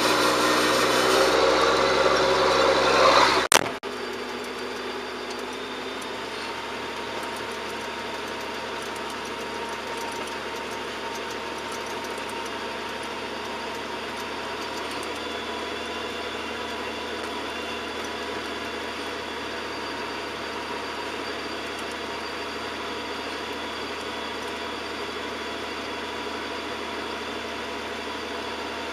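John Deere 7710 tractor's six-cylinder diesel engine running. It is loud for about three and a half seconds, then a sharp knock, and it settles to a steady, quieter run.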